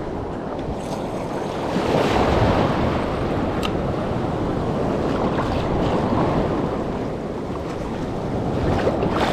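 Ocean surf washing and breaking in the shallows, with wind buffeting the microphone; the wash swells louder about two seconds in.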